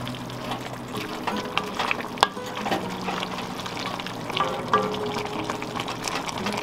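Wooden spoon stirring cabbage, potatoes and bubbling broth in an enamelled cast-iron Dutch oven. It gives steady wet bubbling with scattered scrapes and knocks of the spoon on the pot, one sharp knock about two seconds in.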